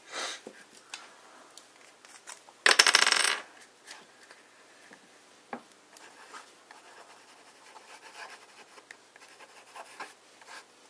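Broad 6 mm pen nib scratching faintly across cheap copier paper as a word is written in large strokes. A loud rattling clatter lasting under a second comes about three seconds in.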